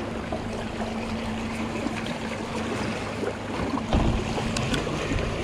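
Yamaha outboard idling with a steady low hum, over water slapping and splashing against the boat's hull. A single thump about four seconds in.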